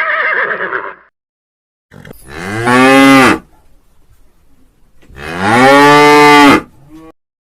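Cow mooing twice: two long, low calls a couple of seconds apart, each swelling and then dropping in pitch as it ends.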